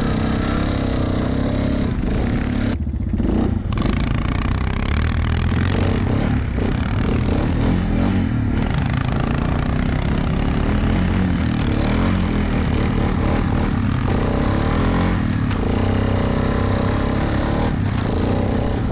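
ATV engine running under throttle while riding over snow, heard from the rider's own seat.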